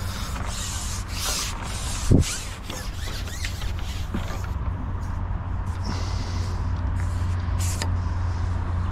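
Wind rumbling on the microphone, with rubbing and scraping handling noises over it and a sharper knock about two seconds in.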